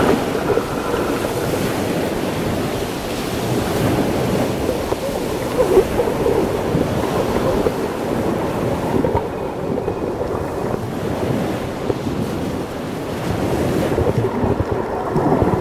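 Muffled rushing water noise from a camera held underwater, a steady grainy wash with the sound low and dull.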